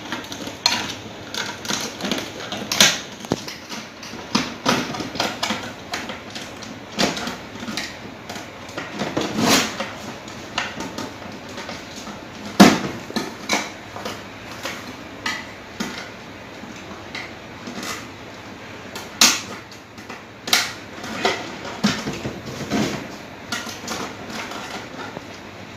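Irregular clicks, taps and knocks of hand work on a circuit breaker: it is unscrewed and taken off the board, with the tools and wires handled. One sharper knock falls about halfway through.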